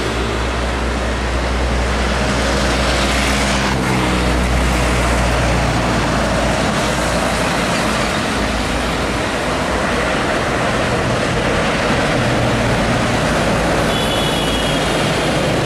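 A Hino diesel truck drives past. Its engine hum is clear for about the first four seconds, then gives way to steady tyre and traffic noise as it moves away.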